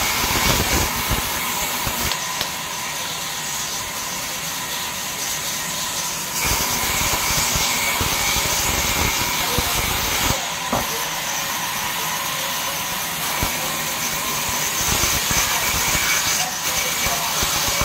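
A sawmill band saw ripping a jackfruit wood plank lengthwise: a steady, loud hiss with a thin whine under it, a few light knocks of wood, and the cut getting a little louder about six seconds in.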